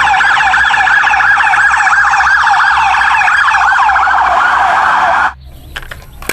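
Toy police car's electronic siren wailing in rapid rising-and-falling sweeps, cutting off suddenly about five seconds in, followed by a few light clicks.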